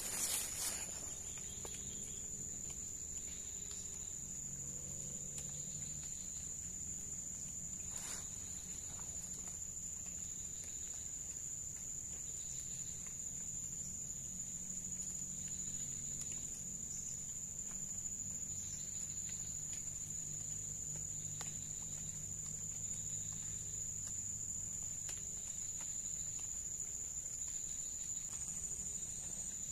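A steady, high-pitched drone from insects in the forest, crickets or cicadas, holding one tone throughout, with a faint low hum beneath it and a single click about eight seconds in.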